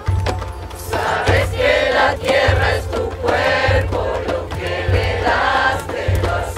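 A group of voices singing a baguala in unison, drawn-out phrases over a low beat that comes about once a second.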